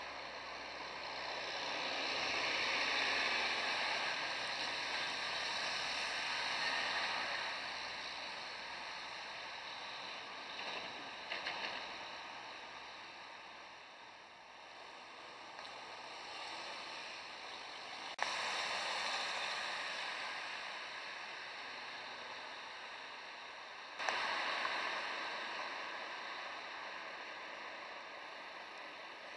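Street traffic: cars passing on a wet, slushy road, their tyres hissing, the rush swelling and fading several times and jumping up suddenly twice in the second half.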